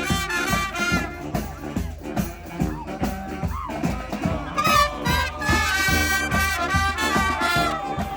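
Street brass band playing an instrumental number: trumpets, trombones and other horns sounding melody lines together over a steady drum beat.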